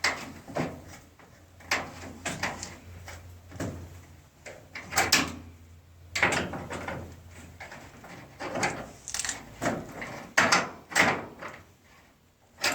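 Irregular metallic clanks and scrapes, roughly one every half second to a second, as a hand wrench works bolts fastening metal channel to a steel garage door. A low hum runs underneath and stops a little past halfway.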